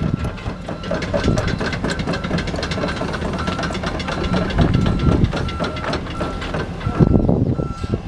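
Diesel engine of a compact tracked excavator running, with clanking and rattling from the machine. A warning beeper sounds over it at an even pace, nearly two short beeps a second, stopping near the end.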